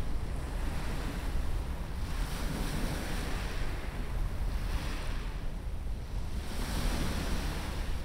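Small waves breaking and washing up a sandy beach, the hiss of the surf swelling and fading several times, over a steady low rumble of wind on the microphone.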